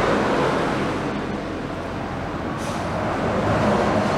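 Pneumatic vacuum brake bleeder running on compressed air: a steady rushing hiss, with a low hum underneath, as it sucks old brake fluid out through the brake caliper's bleed valve.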